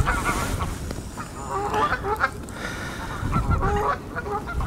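Geese honking repeatedly, in several bursts of short calls.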